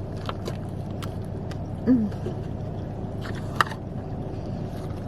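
A person eating fast food: scattered sharp clicks and mouth sounds of chewing, with a short hummed "mm" about two seconds in and a louder click near the end, over a steady low background rumble.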